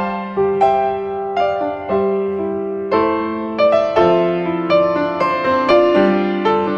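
Background piano music, a melody of struck notes and chords, a new one about every half second to a second.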